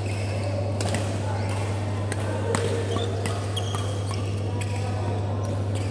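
Badminton doubles rally: sharp racket-on-shuttlecock hits at an irregular pace, with short squeaks of court shoes on the mat, over a steady low hum.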